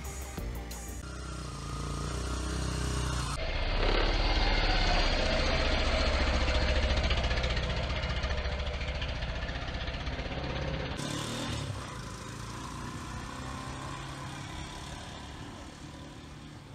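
Kawasaki Fury 125 RR motorcycle engine idling steadily, louder for several seconds in the middle and easing off near the end.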